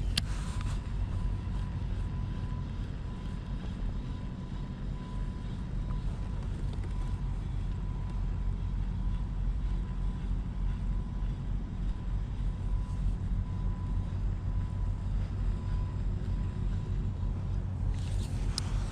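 Small boat's motor running steadily: a low rumble with a faint, steady high whine over it.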